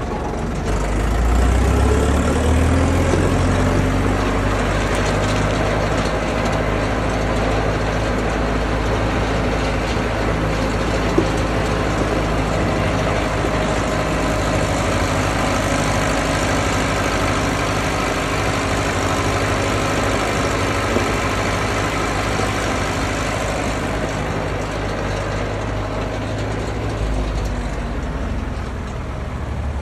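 Hanomag farm tractor's diesel engine running as the tractor drives off over gravel. The engine note rises and swells about a second in as it pulls away, then holds steady.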